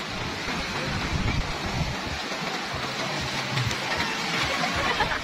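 Surf breaking and washing up a sandy beach: a steady rush of noise.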